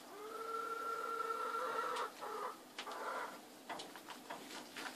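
A chicken calling: one long, level note held for about two seconds, followed by a few shorter calls.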